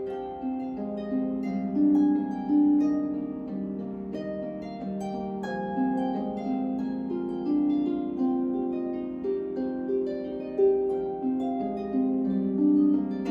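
Solo lever harp played by hand: plucked strings ringing and overlapping, a melody over lower accompanying notes, each note struck cleanly and left to decay.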